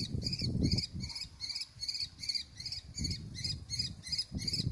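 Steady high chirping, about four chirps a second without a break, with low rumbling thumps on the microphone at the start and again near the end.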